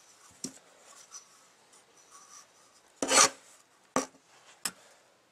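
Handling noise from an oil filter housing cap and the old paper filter element being moved and set down on a concrete floor: a few sharp knocks and a short scrape about three seconds in, the loudest sound.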